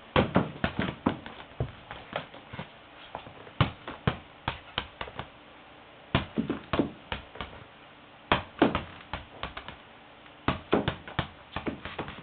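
A French Black Copper Marans rooster's toenails clicking and tapping on a hard floor, in quick bursts of several taps with short pauses between.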